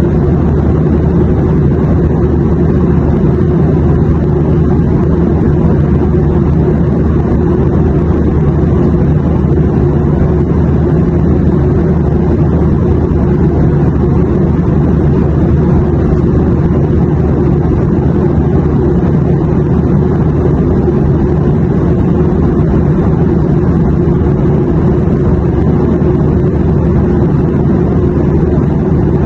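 Steady airliner cabin noise: a constant low engine and airflow drone with no change in level or pitch.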